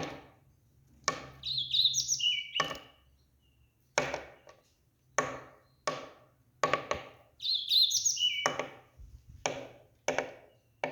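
A series of sharp knocks, roughly one a second and unevenly spaced, like chopping on a board, with a bird chirping briefly twice.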